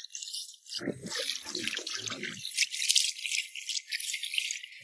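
Water splashing and sloshing in a shallow muddy channel as a long metal clamp is swished through it, about a second in and lasting a second and a half. Underneath, a steady high-pitched rattling hiss continues throughout.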